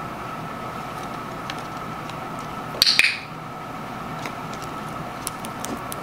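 Two sharp clicks about a quarter second apart, each with a brief bright ring, over a faint steady hum, followed by a few light ticks near the end.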